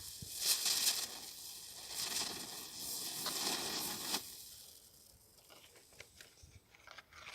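Weco Feuerring ground-spinner firework burning: a rough hiss of sparks that surges several times, then fades away after about four seconds. A few faint clicks come near the end.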